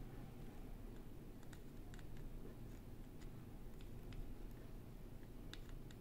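Faint, scattered small clicks and ticks from a soldering iron and a keyboard PCB being handled while Kailh hot-swap sockets are soldered, over a low steady room hum.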